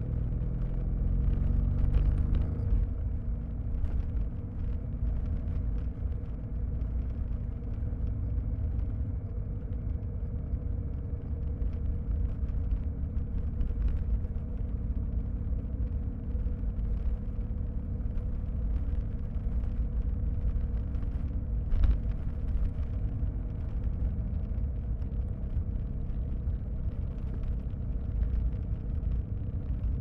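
2023 BMW R1250RS's boxer-twin engine running under way, heard muffled from a recorder inside the rear seat bag. The engine pitch rises over the first two or three seconds as the bike accelerates, then holds steady at cruise over a constant low road and wind rumble. A single sharp knock comes about two-thirds of the way through.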